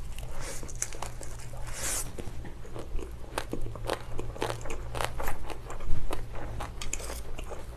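Close-miked chewing of a large mouthful of a bánh hỏi rice-vermicelli wrap, a steady run of wet crunching clicks, loudest about six seconds in.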